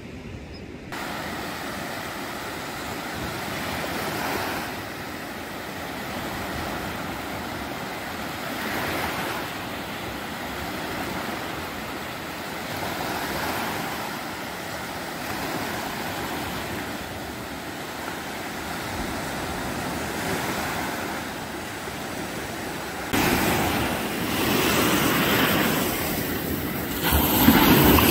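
Gulf of Mexico surf breaking on a sandy beach: a steady wash of waves swelling and easing every few seconds, louder over the last few seconds.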